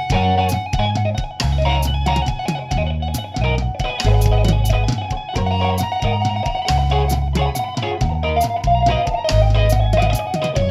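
Background music: guitar over bass and drums with a steady beat.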